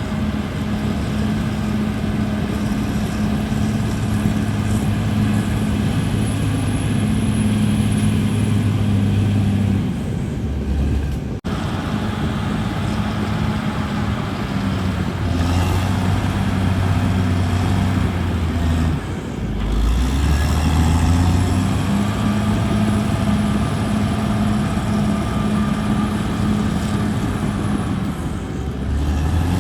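Caterpillar D6R bulldozer's diesel engine running steadily as the dozer works, its note dipping and picking up again a couple of times. There is a momentary dropout a little over a third of the way through.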